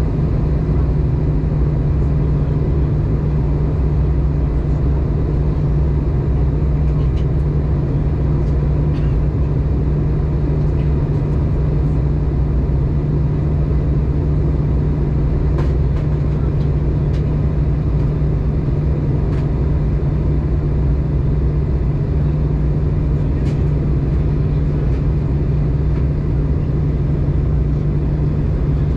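Steady cabin drone inside an Airbus A320 in flight on its descent: engine and airflow noise with a strong low hum and a few faint ticks.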